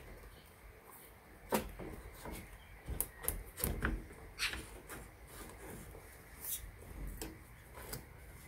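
Scattered clicks and knocks of hand work on a motorcycle's front end as a fork leg is fitted and lined up in the triple clamps. The sharpest knock comes about one and a half seconds in, followed by a quick cluster a couple of seconds later and a few lighter taps after that.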